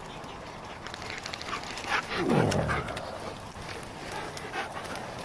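A dog gives a single call about two seconds in that drops steeply in pitch, over faint scattered clicks.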